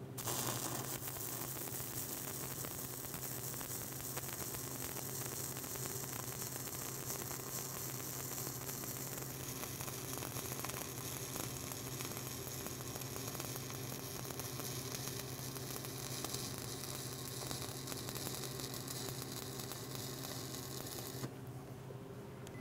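Stick (shielded metal arc) welding with a 7018 electrode: the arc strikes just after the start and burns with a steady crackling sizzle, then breaks off abruptly about a second before the end. A steady low hum sits underneath.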